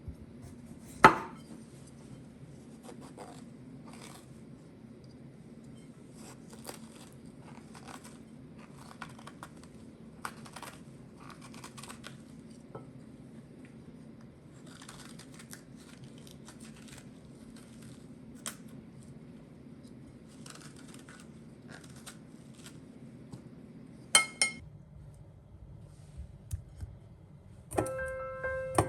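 Kitchen handling sounds: scattered clinks, taps and rustles of dishes and utensils over a steady low hum that stops about 24 seconds in. There is a loud knock about a second in and a sharp ringing clink just before the hum stops. Soft piano music begins near the end.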